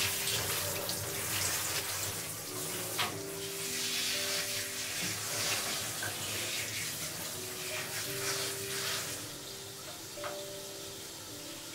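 Water spraying from a handheld shower head onto a puppy's fur in a shower tray, a steady hiss that thins out about nine seconds in, over soft background music with long held notes.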